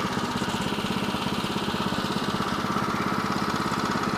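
Woodland Mills HM122 sawmill's small gasoline engine running steadily, with an even, rapid pulsing.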